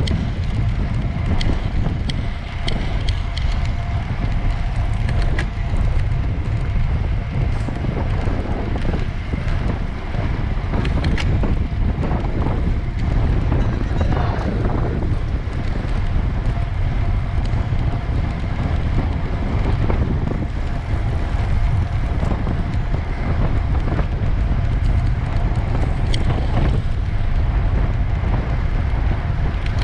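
Wind buffeting the microphone as a steady low rumble with a rushing haze over it and scattered faint clicks.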